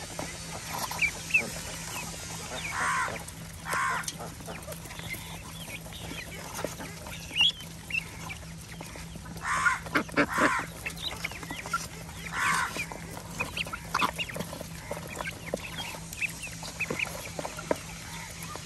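Mixed flock of ducks and chickens feeding at close range: ducks quacking in short loud bouts every few seconds, the loudest about ten seconds in, with high peeping and clucking among them. A steady low hum runs underneath.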